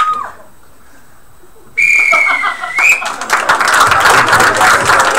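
A whistle sounds one steady high blast of about a second, about two seconds in, then the audience breaks into applause and cheering that runs on loudly. A short high-pitched cry is heard at the very start.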